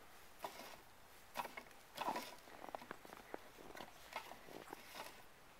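A toddler's faint grunts and short vocal noises, the loudest about two seconds in, mixed with a few quick scuffs and knocks.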